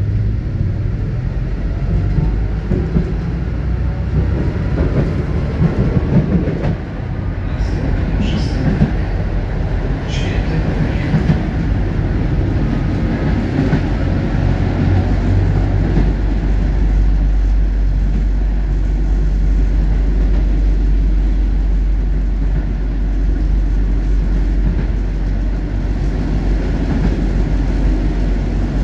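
Moderus Alfa low-floor tram running along the track: a steady low rumble of wheels on rail with a few short high squeaks about 8 to 11 seconds in.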